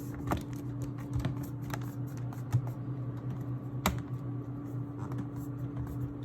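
Plastic bottom cover of a laptop being pressed down, its clips snapping into place in a run of small irregular clicks, with one sharper click about four seconds in.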